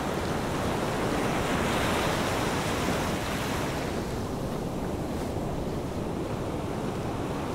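Ocean surf washing steadily, swelling around two seconds in and then easing off.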